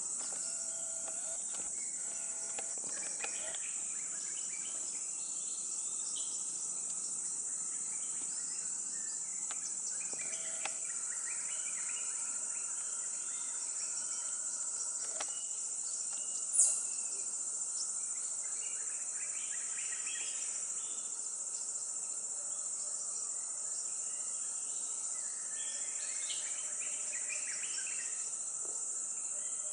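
Steady high-pitched insect chorus, with faint scattered bird calls beneath it and one brief, louder high chirp just past the middle.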